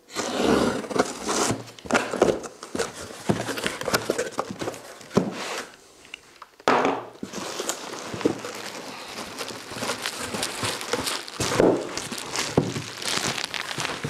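A taped cardboard shipping box being opened by hand: tape and cardboard flaps scraping, rustling and clicking, then plastic wrapping crinkling as the rolled reflective bubble-foil insulation inside is handled and lifted out, after a short lull about halfway through.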